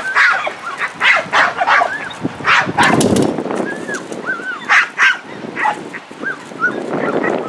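Dutch Shepherd barking in short, sharp bursts, mixed with high arching whines, while being agitated by a decoy in protection bite work.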